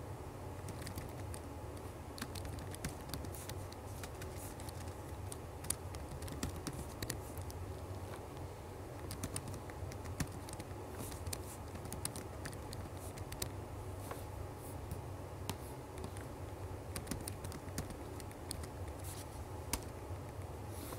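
Typing on a computer keyboard: irregular runs of keystroke clicks over a steady low hum.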